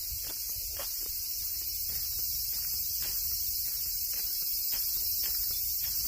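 A steady, high-pitched chorus of insects shrilling in summer woodland, with a faint low rumble underneath.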